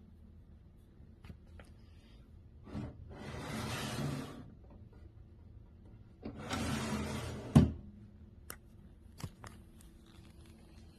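Cabinet's sliding barn door rolled along its track twice, each slide lasting about a second and a half. The second slide ends in a sharp knock as the door hits its stop, followed by a few small clicks.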